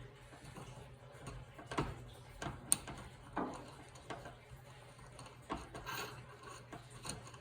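Scattered light clicks and taps of small rifle parts being handled, with the crush washer coming off the barrel's muzzle threads; one sharper click about a third of the way in.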